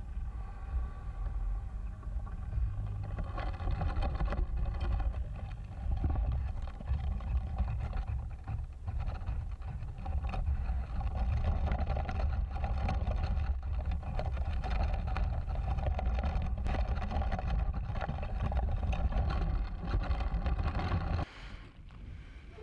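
Wind buffeting the microphone of an action camera taped to the mast of a Volantex Compass RC yacht under sail, with water washing past the hull as a steady, heavy rumble. It drops away sharply near the end.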